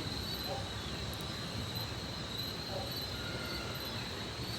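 Evening insects, crickets or similar, keeping up a steady high-pitched chirring drone over a low, even background rumble.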